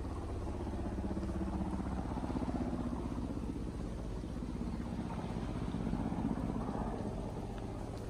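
Distant helicopter flying, a steady engine drone that swells and fades slightly.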